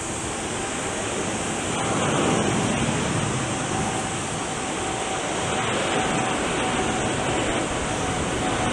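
Boeing 747-8F freighter's four GEnx-2B jet engines at takeoff power, a steady rushing roar that swells about two seconds in and again near the end, with a faint steady whine running through it.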